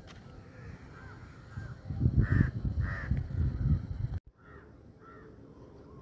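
Crows cawing, a series of short calls with the two loudest about two and three seconds in, over a low rumble. The sound cuts out abruptly just past four seconds, then fainter caws follow.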